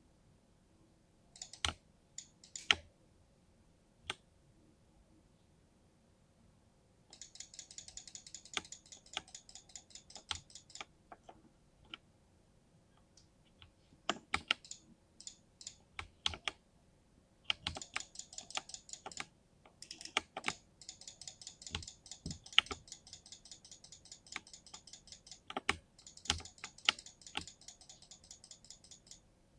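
Typing on a 60% mini mechanical keyboard with silver linear switches: quick runs of rapid keystrokes broken by short pauses, with a few louder single key presses standing out, the first few seconds holding only scattered strokes.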